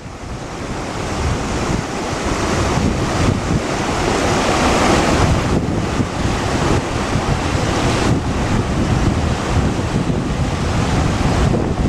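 A fast river rushing over rocks, with wind buffeting the microphone; the sound fades in over the first two seconds and then holds steady.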